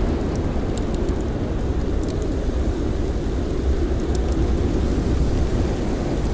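Blizzard wind blowing as a steady low rumble, with scattered faint, sharp crackles of a campfire.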